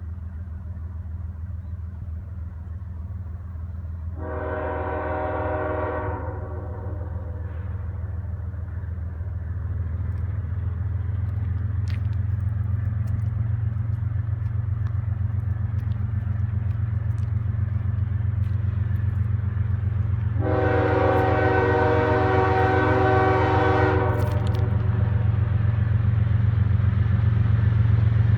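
CSX diesel freight train approaching, its low engine rumble growing steadily louder, while the locomotive's multi-chime air horn sounds twice: a blast of about two seconds about four seconds in, and a longer one of about three and a half seconds around twenty seconds in.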